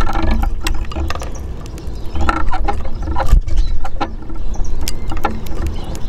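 Greenfinch and Eurasian siskins feeding at a wooden bird table: scattered sharp taps and clicks from beaks and feet on the wood and the clay seed dish, over a loud, uneven low rumble.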